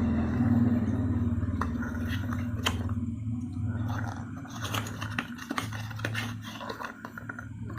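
Medicine packaging being opened by hand: a run of small clicks, snaps and rustles, over a steady low hum that slowly fades.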